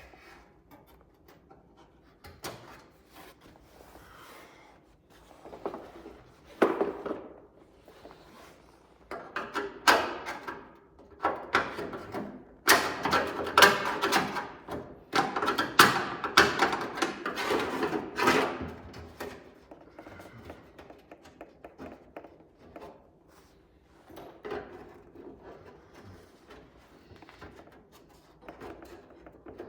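Hand tools clinking, knocking and scraping against metal hardware as spoiler fasteners are worked with a wrench. Irregular and sparse at first, busiest in the middle stretch, then thinning out.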